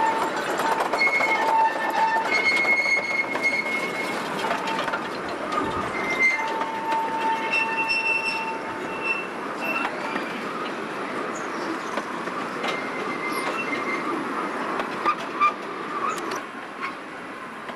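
Miniature park train's cars rolling past on their steel wheels, the wheels squealing in on-and-off high-pitched tones over a steady rolling rumble, with a couple of sharp clacks late on. The sound slowly fades as the cars move away.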